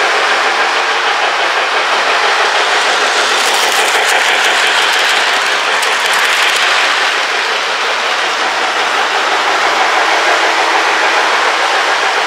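Lionel electric toy train running on its track: a steady rushing of motor and metal wheels on the rails. About three to seven seconds in there is extra clicking and clatter as the train passes close by.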